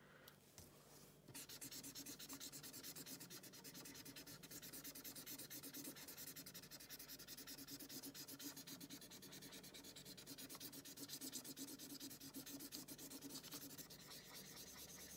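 Yellow felt-tip marker scribbling on paper, colouring in with rapid back-and-forth strokes, faint and steady, starting about a second in.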